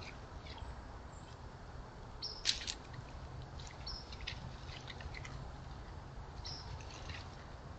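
Outdoor ambience through a trail camera's microphone: a steady low rumble with scattered short, high chirps and clicks, the sharpest click about two and a half seconds in.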